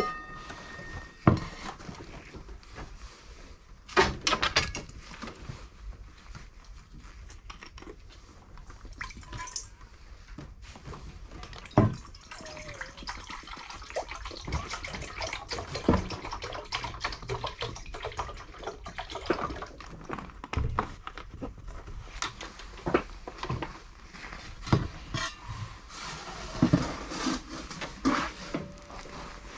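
Scattered knocks, clicks and rustling from cat food and a stainless steel bowl being handled.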